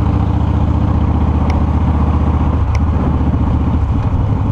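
Cruiser motorcycle engine running steadily under way, a low pulsing engine note with wind and road rush over it.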